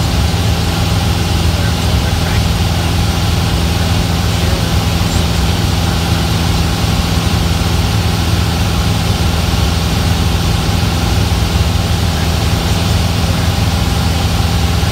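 Cessna's engine and propeller running steadily in level cruise flight, heard from inside the cockpit.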